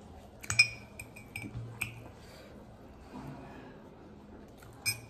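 A metal spoon clinking and scraping against a plate while scooping food, several sharp ringing clinks about half a second to two seconds in, the loudest near the start, and another just before the end.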